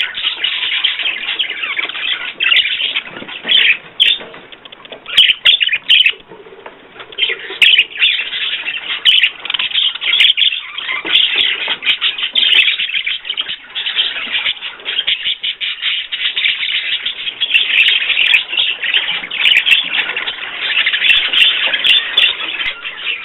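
Small cage birds kept indoors chirping and twittering busily and without pause, with a short lull about six seconds in.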